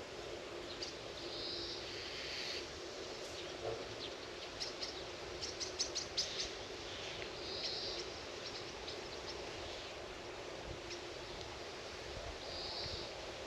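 Outdoor ambience of birds chirping, with short high calls now and then and a quick run of sharp chirps around the middle, over a steady low background hum.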